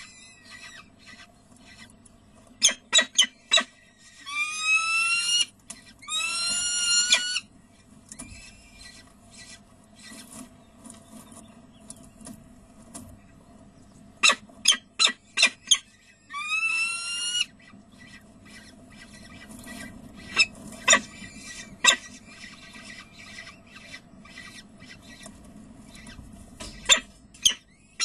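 Peregrine falcons calling in the nest box: three drawn-out, rising-then-level calls, two close together a few seconds in and one more about halfway through. Between them come sharp ticks and taps, some in quick runs of four or five.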